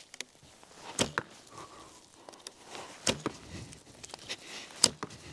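A Tibetan-style bow shot three times in quick succession, each release a sharp snap of the bowstring, at about one, three and five seconds in. The first two shots are each followed a fraction of a second later by a second knock. Faint footsteps on frosty grass sound between the shots.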